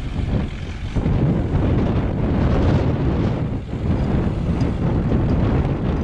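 Wind buffeting the camera microphone: a loud, gusty rumble that rises and falls unevenly.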